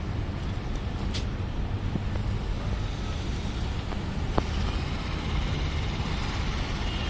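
Car driving on a road: a steady low rumble of engine and tyre noise, with a sharp click about a second in and a short tick about four seconds in.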